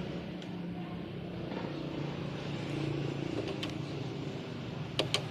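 A motor vehicle engine running steadily, its low hum shifting slightly in pitch, with two sharp clicks near the end.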